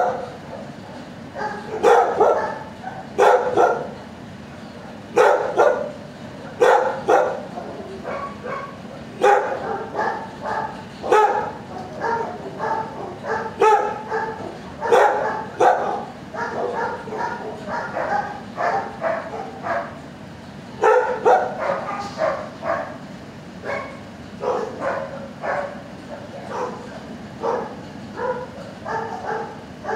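Dogs barking in a shelter kennel: loud single barks every second or two, with denser runs of quicker, softer barks in between.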